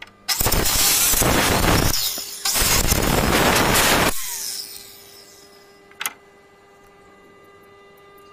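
Maktec circular saw ripping along the edge of a wooden door: the blade cuts in two stretches with a short break about two seconds in, then the motor winds down with a falling whine about four seconds in. A single sharp click follows about six seconds in.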